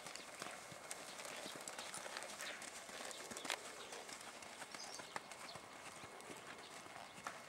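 A ridden Quarter Horse's hooves on arena sand at a walk: soft footfalls with scattered sharp clicks, one louder click about three and a half seconds in.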